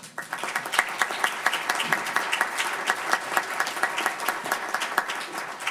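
An audience applauding, many hands clapping at once. It breaks out suddenly and thins out near the end.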